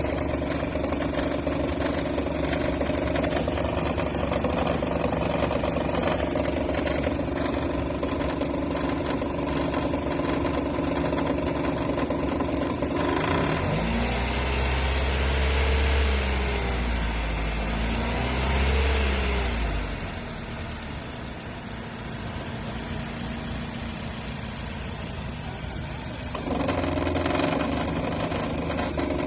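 2008 Nissan Versa's engine running with a loud noise from a failing serpentine belt tensioner pulley. About halfway through it is revved twice, the pitch rising and falling with each press of the gas; it then runs quieter for several seconds before getting louder again near the end.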